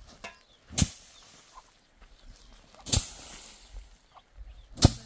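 Three sharp slaps or knocks, about two seconds apart, the middle one trailing off in a short hiss.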